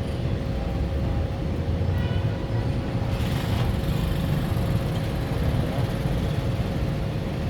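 Steady rumble of street traffic, with a short faint pitched tone about two seconds in.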